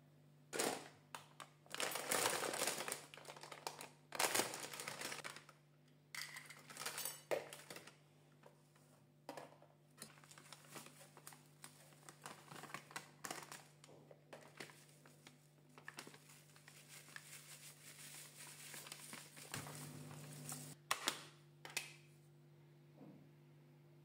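Plastic cake-mix bag crinkling as it is handled and emptied into a plastic mixing bowl, with scattered light knocks of things set down on the counter.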